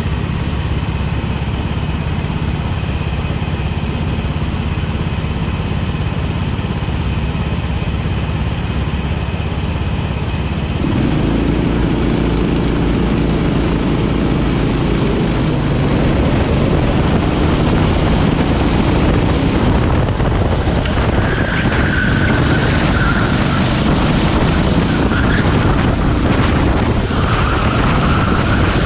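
Rental go-kart engines in a close pack, running at low speed at first, then opening up to full throttle about eleven seconds in as the race starts, the engine note rising and then held high. A short high whine comes twice in the second half.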